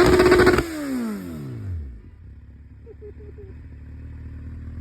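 Kawasaki Z1000's inline-four engine revved high and held for about half a second, then the revs fall away smoothly over about a second and settle into a steady idle.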